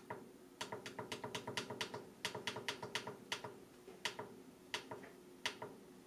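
Temperature-up button on a Ninja Foodi XL Pro Air Fry Oven's control panel pressed over and over to step the setting up from 375 to 450 degrees: a quick run of light clicks for about three seconds, then a few single clicks spaced out.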